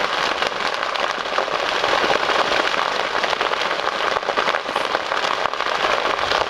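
Open fire in dry grass, leaf litter and brush crackling, a dense, steady stream of rapid pops and snaps.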